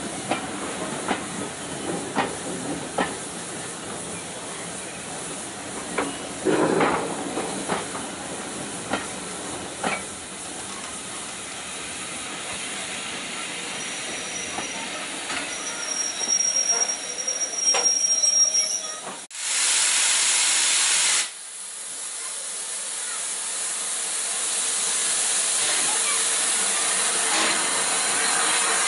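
Steam train rolling slowly, with clicks from the wheels over rail joints and a thin, high squeal of the wheels or brakes partway through. About two-thirds of the way in, a loud burst of steam hiss starts and cuts off sharply after about two seconds, then the locomotive's steam hiss rises steadily.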